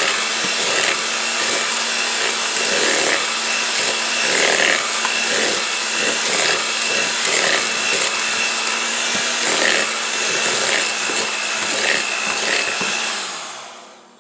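Electric hand mixer running steadily as its beaters cream butter and sugar, with irregular clicks of the beaters against the bowl. The motor winds down and stops near the end.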